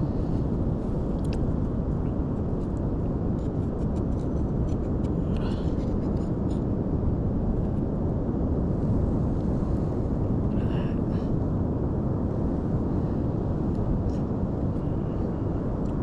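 Steady low rumble of wind on the microphone and ocean surf, with a few faint clicks.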